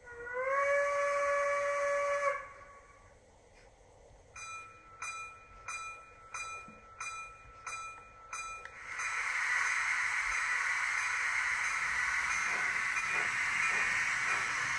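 Digital sound from a Märklin model of a class 23 steam locomotive: a whistle blast that rises into a steady tone for about two seconds, then eight short rhythmic sounds about two a second, then a steady steam hiss from about nine seconds in.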